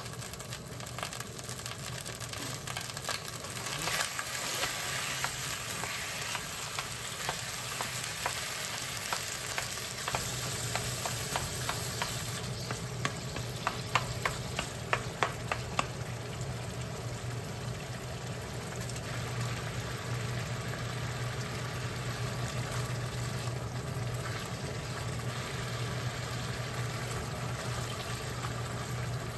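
Tofu frying in oil in a wok, sizzling steadily while it is broken up and stirred with a wooden spatula. Partway through comes a quick run of sharp clicks of the spatula against the pan. A steady low hum joins about a third of the way in.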